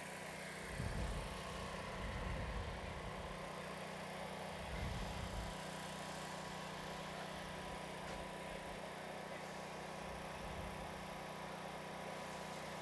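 Steady low mechanical hum of background garage noise, with a couple of short low rumbles, about a second in and again about five seconds in.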